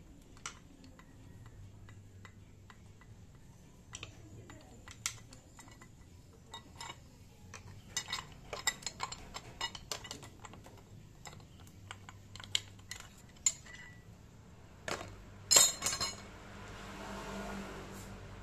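Small metallic clicks and clinks of a hand tool and screws while a side cover is unscrewed and taken off a Siruba industrial buttonhole sewing machine. A loud metal clatter comes near the end.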